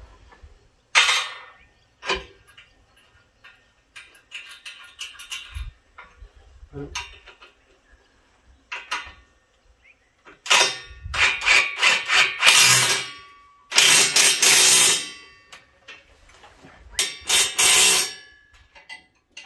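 Clanking and clattering of metal: tools and steel parts being handled and knocked together in irregular bursts. The loudest stretch is about ten to fifteen seconds in, with more near the end.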